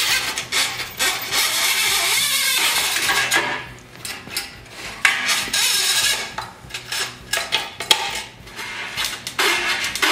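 A long choke cable being pulled and fed through a lawn tractor's metal frame, its housing scraping and rattling against the metal. The first few seconds are a dense, continuous scrape, then come patchier rubs and a couple of sharp clicks.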